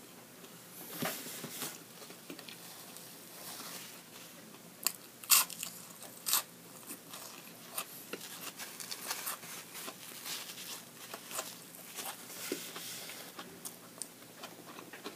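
A person biting and chewing crispy fried onion rings, with scattered sharp crunches and wet mouth sounds. The loudest crunches come a little after five and six seconds in.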